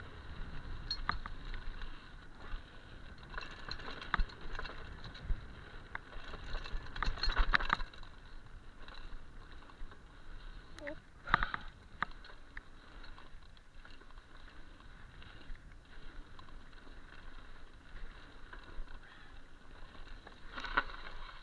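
Mountain bike riding fast down a rough dirt trail: tyres rolling over dirt with frequent rattles and knocks from the bike over bumps, loudest in a burst of clatter about seven seconds in and a sharp knock about eleven seconds in.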